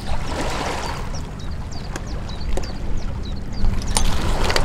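Wind rumbling on the microphone over water lapping at a stony shore, with a bird chirping in short high notes over and over and a few sharp clicks of stones.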